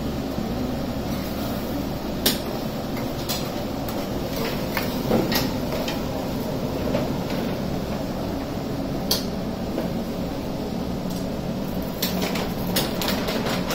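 Cooking at a stove: a steady background hum with scattered sharp clinks and knocks of utensils, jars and containers against a pan, the clicks thickening near the end as seeds are sprinkled into the hot oil.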